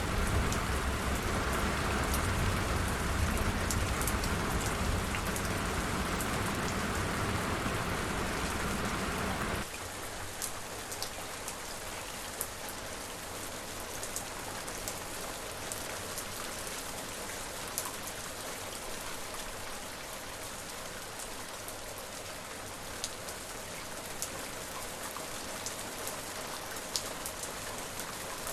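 Steady rain falling, with individual drops ticking sharply through the hiss. About a third of the way in it changes abruptly from heavier, deeper rain to lighter rain with more distinct drops.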